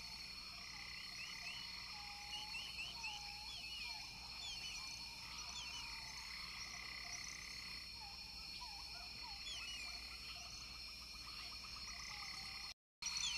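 Faint wildlife ambience: a chorus of many short chirping calls over a steady high-pitched hum, with a brief dropout near the end.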